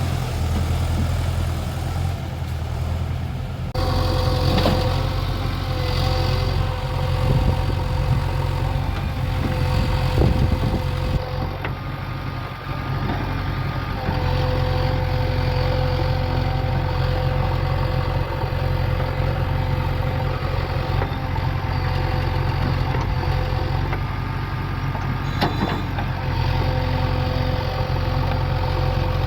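Diesel engines of a JCB 3DX backhoe loader and tractors running steadily under a working load. The engine note steps up about four seconds in, and there are a few sharp knocks.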